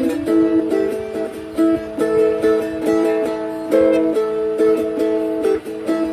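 A plucked string instrument being played: a quick melody of picked notes over steady, ringing pitches.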